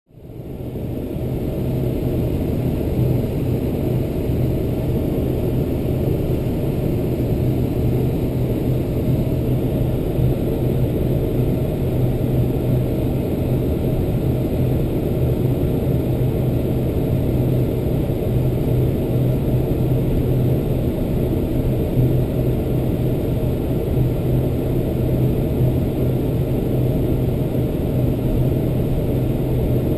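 Jet engines of a Boeing 747-400, GE CF6-80C2 turbofans, heard from inside the cabin at taxi power as a steady low drone with a constant hum. It fades in at the start.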